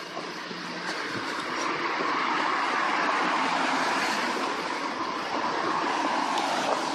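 A vehicle driving past on a wet road: tyre hiss that swells over about two seconds, holds, and fades at the end.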